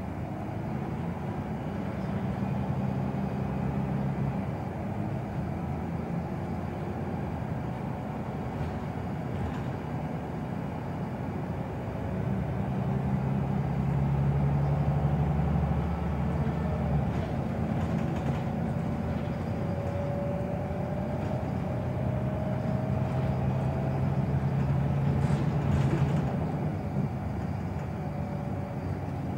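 Scania Wright Solar single-deck bus heard from a seat in its cabin, driving along with its engine running under road and tyre noise. The engine grows louder around the middle, and a faint whine rises slowly in the second half.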